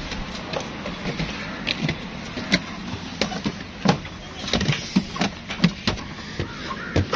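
Footsteps of several people climbing a steep stairway: irregular knocks and scuffs on the steps, coming thicker and louder in the second half, over a steady outdoor background hiss.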